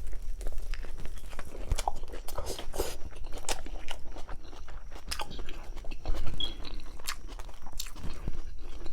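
Close-miked eating of a baked grinder sandwich: biting and chewing, with irregular crunches and wet mouth clicks.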